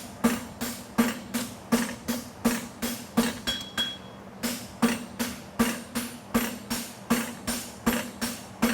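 Hand hammer striking a hot steel horseshoe bar on an anvil, about three blows a second with each blow ringing briefly and a short break a little before halfway. The edge of the bar is being hammered over to run out the bevel of a hind bevel shoe.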